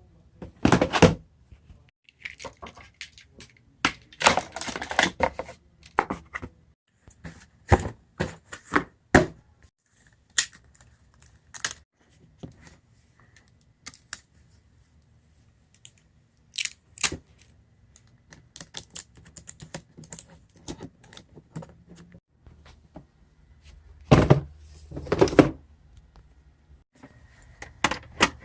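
Hard objects being handled: an irregular series of clicks, knocks and thunks, with a few louder clattering, rustling bursts about a second in, around four to five seconds in, and again near the end.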